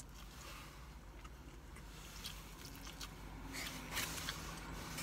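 A person biting into and chewing a slice of pizza close to the microphone, with scattered small wet mouth clicks.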